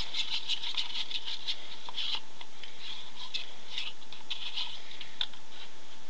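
Black iron oxide pigment and soy milk being stirred in a paper cup: a run of quick, irregular scratchy strokes, with a sharper tick about five seconds in.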